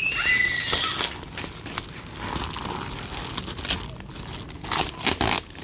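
Plastic packaging crinkling as it is handled, with scattered clicks and a few louder knocks near the end.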